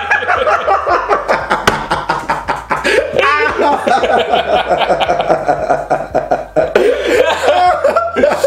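Two men laughing hard and continuously, helpless fits of laughter from both at once.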